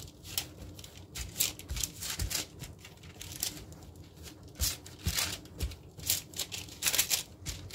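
Hands pressing and stretching oiled focaccia dough across a parchment-lined baking sheet: irregular soft rustles and scrapes of hands sliding over dough and paper, a few louder than the rest.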